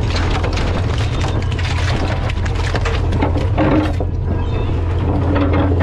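Steady low drone of a fishing boat's engine, with irregular slaps and knocks of cod landing and being handled on an aluminium sorting table.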